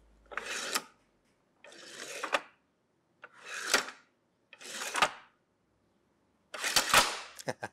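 Wooden adjustable tall fence for a table saw being slid up and down: five wood-on-wood sliding scrapes, each ending in a sharp knock as the sliding board reaches the end of its travel along the slotted machine bolts.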